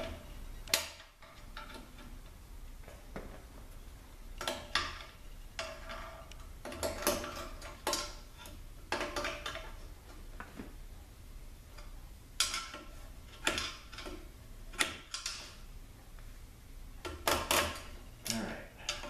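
Irregular metallic clicks and scrapes, some with a short ring, as a snap ring is pried out of the intermediate (2-4) piston housing of a 42RLE automatic transmission.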